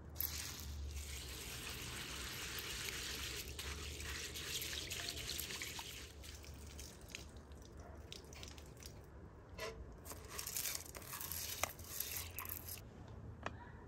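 Water poured from a metal jug onto dried pulses in a bowl, a steady trickle for about six seconds. Later, a patter of pulses tipped from the bowl into a pot of hot water, with small splashes and ticks of the bowl against the pot rim.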